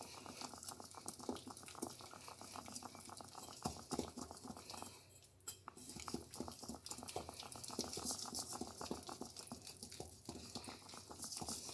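Fingers rubbing and creaming room-temperature butter against the inside of a stainless steel bowl: faint, soft squishing and smearing with small scrapes, pausing briefly about five seconds in.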